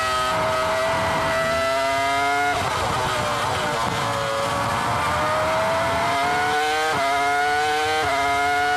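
Ferrari F2004 Formula 1 car's 3.0-litre V10 heard onboard at high revs. The pitch climbs slowly, drops sharply about two and a half seconds in as the driver lifts for a corner, then rises again as the car accelerates out. Near the end come quick upshifts, each a sudden drop in pitch followed by a fresh climb.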